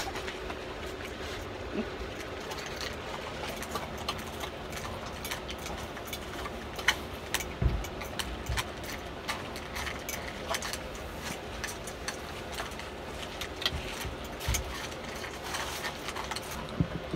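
Small dog eating dry kibble from a steel bowl: irregular light clicks and crunches of food against metal, over a steady low hum.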